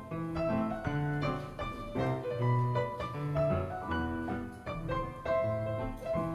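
Background piano music: a brisk run of notes over a regular bass line, in the style of silent-film accompaniment.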